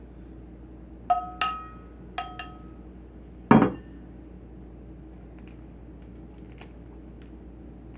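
Hard-boiled egg tapped against dishware to crack its shell: four short ringing clinks in two pairs, then one heavier knock about three and a half seconds in, followed by faint small ticks.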